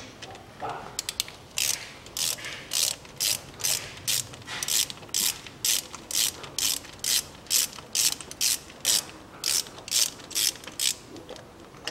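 Hand ratchet clicking in short bursts, about two to three a second, as a bolt on the CVT heat exchanger is backed out.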